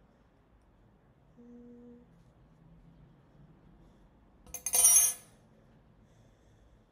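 A short hummed note about a second and a half in, then a loud, brief rustling clatter just before five seconds in, handling noise while she works on the crocheted headband.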